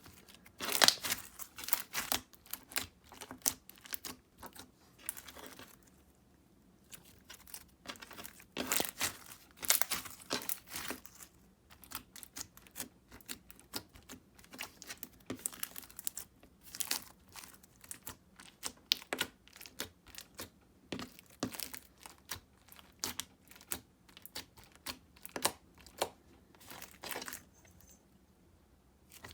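Fishbowl-texture slime with little fruit slices mixed in, squished, folded and stretched by hand, giving irregular sticky clicks and crackles.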